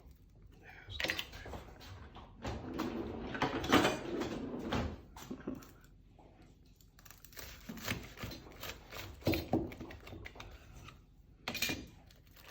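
Irregular knocks, scrapes and rustling of food and kitchenware being handled on a counter, in uneven bursts with a louder stretch a few seconds in.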